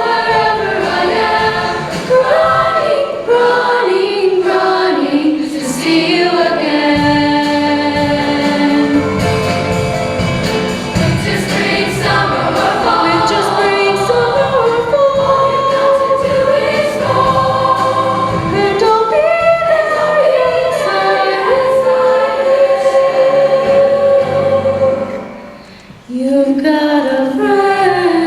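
Show choir singing in harmony, many voices together. The sound drops away briefly near the end before the voices come back in.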